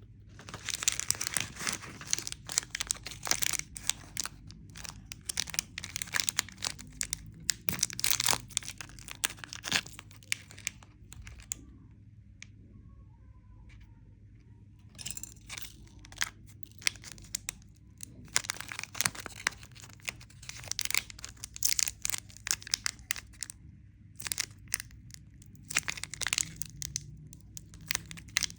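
Candy wrapper packaging crinkling and tearing close up, in crackly bursts, with a pause of a few seconds around the middle.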